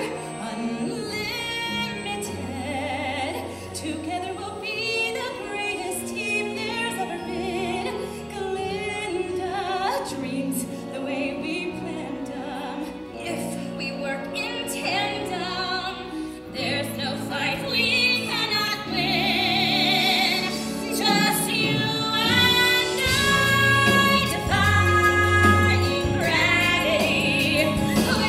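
Live musical-theatre song: women's voices singing with vibrato over a theatre orchestra, building louder in the last few seconds.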